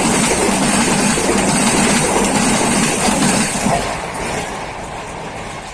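Passenger coaches of an Indian Railways express train passing close by at speed, with steady wheel-and-rail noise. About four seconds in the last coach goes by and the sound falls away as the train moves off.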